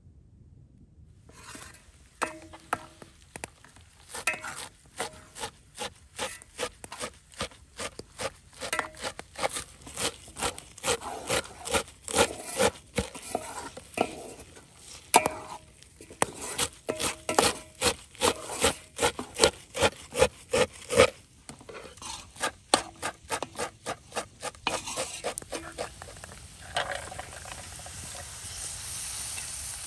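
Kitchen knife chopping fresh herbs on a wooden board, a long run of sharp chops at about two to three a second. Near the end, food sizzles as it fries in a metal pan.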